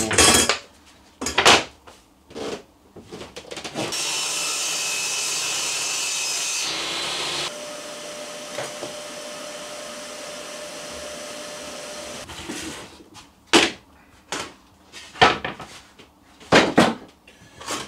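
Circular saw cutting a short piece of wood to length: loud steady cutting noise for about three seconds starting around four seconds in, followed by a quieter steady running sound that stops about twelve seconds in. Knocks and clatter of wooden pieces being handled before and after the cut.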